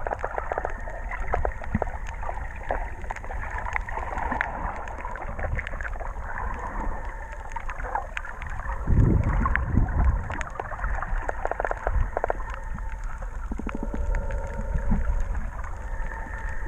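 Muffled underwater sound picked up by a camera below the surface over a coral reef: a steady low rumble of moving water with scattered sharp clicks and crackles, and a louder low surge about nine seconds in.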